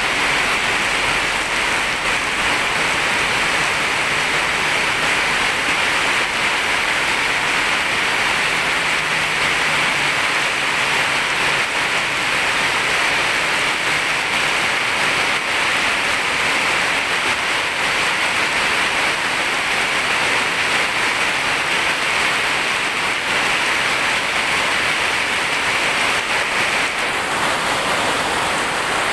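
Heavy tropical downpour: rain pouring steadily onto a flooded road, an even, dense hiss that does not let up.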